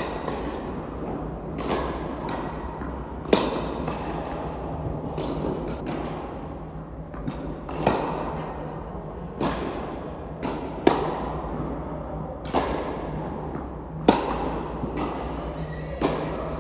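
Tennis rally in a large indoor hall: sharp racket-on-ball hits roughly every second and a half, the loudest about every three seconds with quieter hits and ball bounces between, each echoing briefly off the hall.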